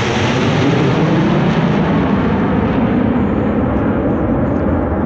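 Formation of Aermacchi MB-339 jet trainers flying low overhead with a loud jet roar. Its high hiss thins out over the last couple of seconds as the jets pull away, leaving a lower rumble.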